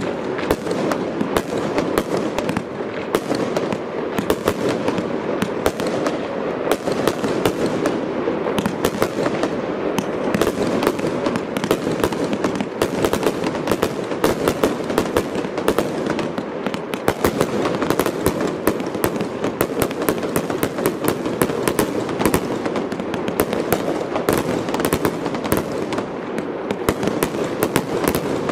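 Fireworks display: a dense, unbroken barrage of aerial shell bursts, with many bangs and crackles every second and no pause.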